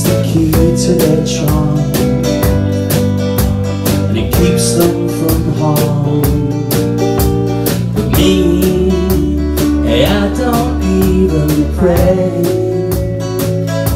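Live band playing a pop-rock song: strummed guitar over electric bass guitar and drums, with a steady beat.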